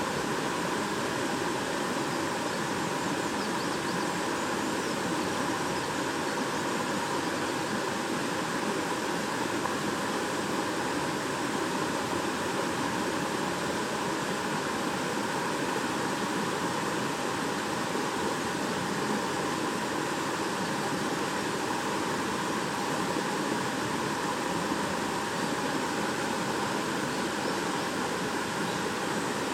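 Shallow stream babbling steadily over stones, a constant rush of water.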